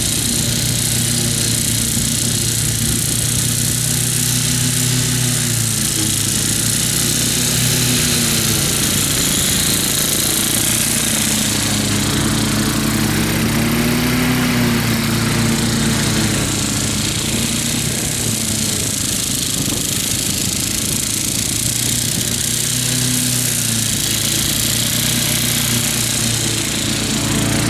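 Wolf Garten ride-on mower's engine running steadily as it cuts tall, wet grass, its pitch wavering up and down with the load. It grows a little louder near the end as the mower passes close by.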